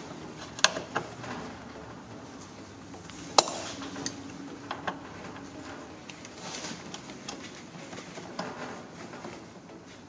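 Scattered metallic clicks and clinks of a socket and long bar being worked on a seat-belt anchor bolt that is stuck tight with thread locker. The sharpest clink comes a little over three seconds in.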